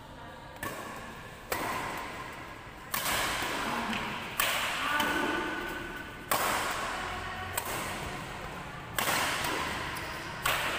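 Badminton rackets striking a shuttlecock back and forth in a rally: about seven sharp smacks, one every second or two, each ringing on in a large echoing hall.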